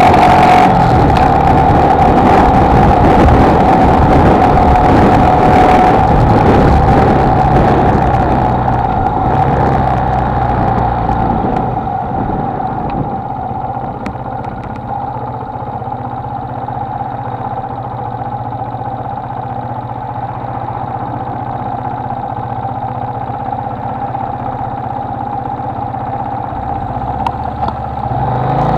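Honda XLR125R single-cylinder engine running with wind noise while riding. About a third of the way in the sound eases off, the wind hiss dropping away and leaving a steadier, quieter engine note. Near the end it rises again.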